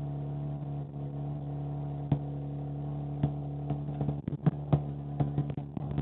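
A steady, muffled, narrow-sounding drone with crackling clicks that come thicker a few seconds in. The recording is distorted because the car's Bluetooth has cut in.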